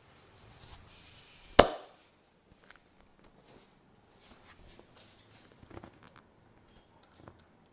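A joint cracked during massage: one loud, sharp crack about one and a half seconds in, followed by faint rustling and a few small clicks.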